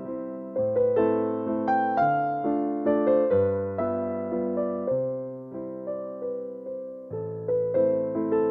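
Background piano music: a slow waltz in a minor key, each note struck and fading in an even rhythm.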